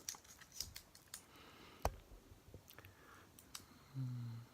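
Small metallic clicks and taps from a Leatherman OHT multitool being handled, its folding tools and metal handles knocking together, with one sharper knock about two seconds in. A short low hummed 'mm' near the end.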